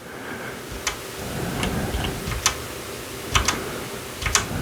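Separate key presses on a mechanical keyboard with red linear switches, about eight sharp clicks, some in quick pairs, as function-key combinations are tried.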